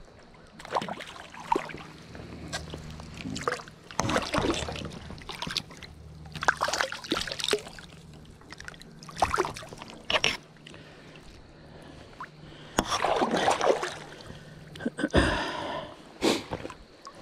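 Shallow creek water splashing and sloshing in a string of short, irregular splashes as a landed trout is held and released by hand at the surface.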